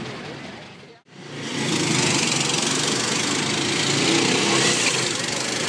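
Small engines of miniature parade cars running steadily as they drive past, coming in after a brief drop to silence about a second in.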